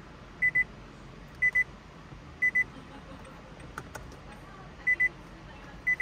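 Electronic warning beeper sounding short double beeps at one steady high pitch, a pair about every second, pausing once midway before resuming. A single light click falls about two-thirds of the way through.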